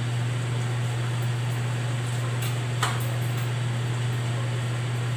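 Steady low machine hum, like a fan or motor running, over an even hiss, with one light click nearly three seconds in.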